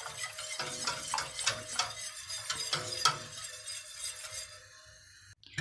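Wire whisk scraping and clinking against the inside of a stainless steel pot, beating a thin flour-and-water batter in quick strokes of about three a second, stirred without pause to keep it from going lumpy. The strokes fade and stop shortly before the end.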